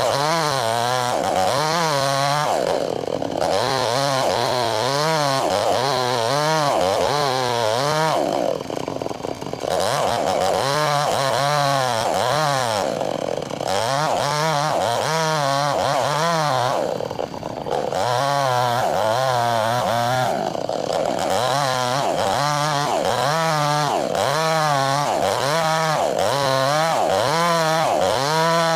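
Chainsaw running hard while splitting a log lengthwise, its engine pitch rising and falling about once a second as the chain bites into the wood and frees. It eases off briefly twice.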